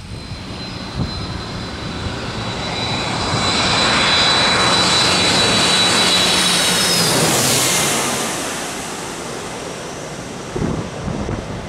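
Twin-engine jet airliner on final approach passing low overhead with gear down. The engine noise builds to a loud peak in the middle, and a high fan whine drops slightly in pitch as the plane passes. Wind buffets the microphone near the end.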